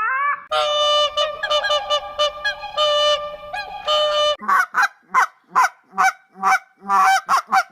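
Geese honking. It starts as a chorus of long, overlapping, steady calls, then turns into a run of short repeated honks, about two to three a second.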